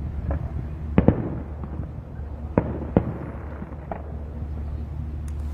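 Fireworks going off: a string of sharp bangs, a second or so apart, each with a short echo. The loudest is a double bang about a second in. A steady low hum runs underneath.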